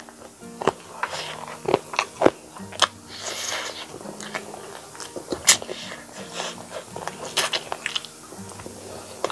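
Eating sounds: biting and chewing pieces of curry-coated chicken, with irregular wet smacks and sharp clicks, and a short sucking hiss a little over three seconds in.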